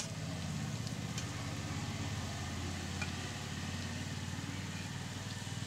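Potato chops sizzling as they deep-fry in hot oil in an iron wok, under a louder low, pulsing hum like an idling engine that sets in at the start and eases off near the end.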